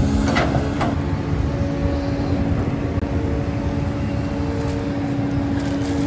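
Caterpillar hydraulic excavator's diesel engine running steadily under load while it digs, a low rumble with a steady hum over it.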